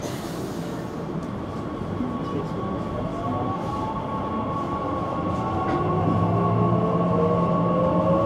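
Electric S-Bahn train accelerating: its drive whine rises steadily in pitch from about three seconds in, over a steady high tone, with a low hum coming in near the end as the sound grows louder.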